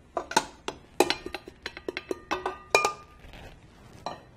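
Small stainless-steel bowl knocked and scraped against the rim of a stand mixer's steel bowl to empty out cake flour: a quick, uneven run of metal clinks, a few of them ringing briefly, with one more clink near the end.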